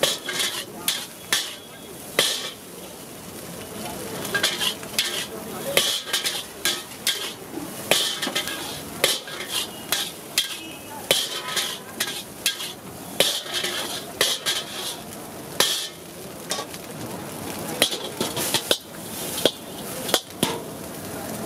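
Steel spatula scraping and clanking against a large iron wok as fried rice is stir-fried and tossed, in quick irregular strokes, with frying sizzle underneath.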